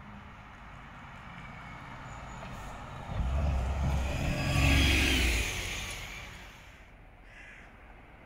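VDL Ambassador city bus driving past close by: its diesel engine and tyres grow louder as it approaches, peak as it goes by about three to five seconds in, then fade away.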